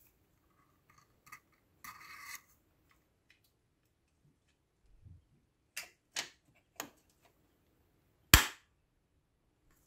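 Metal parts of a toy Colt 1911 pistol clicking and sliding together as it is reassembled: a short scrape about two seconds in, a few clicks in the middle, and one sharp, loud metallic snap near the end.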